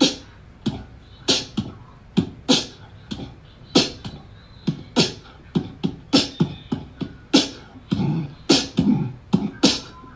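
Rhythmic percussive beat of sharp hits, about two a second with quicker ones between.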